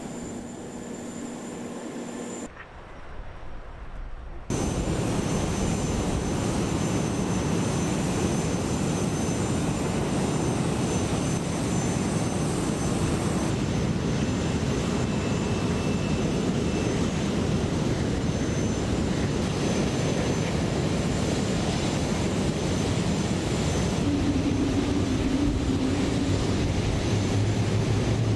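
Airbus A380 jet engines running: a steady whine at first, a brief quieter dip, then about four seconds in a sudden jump to a loud, steady jet engine noise with a thin high whine over it.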